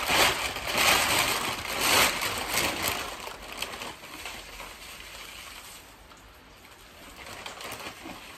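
A large plastic bag of vermiculite rustling as hands dig in and scoop the dry granules out. The rustling comes in loud, irregular bursts for about the first three seconds, then grows much quieter.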